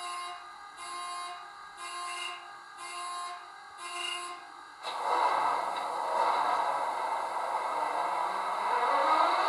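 Model Class 66 locomotive's DCC sound decoder playing through small speakers: five short beeps about one a second, then at about five seconds a sudden, louder rush that carries on, with a rising whine near the end, as the simulated diesel engine starts up.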